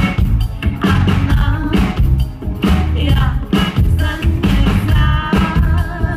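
Live pop song played loud by a band, with a steady drum beat and heavy bass under a woman's lead vocal, as heard in the concert hall.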